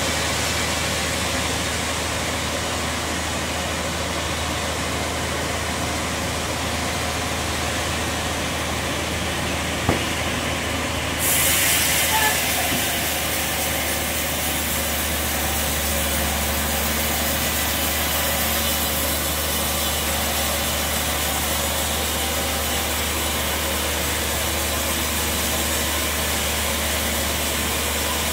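Sawmill band saw and its drive running with a steady low drone. A single sharp knock comes about ten seconds in, and right after it a loud hiss sets in and keeps on.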